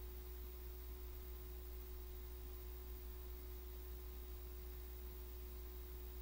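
Quiet room tone: a steady low hum with a faint constant tone and hiss, and nothing else happening.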